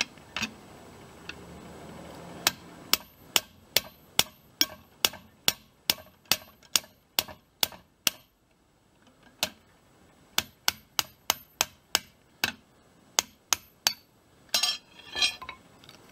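Hammer striking a steel socket extension bar to drive a centreboard pivot bolt out of its bushing in a strap held in a vise. Two runs of sharp, ringing metal-on-metal blows, about two or three a second, with a pause of about two seconds between them. A short metallic clatter follows near the end.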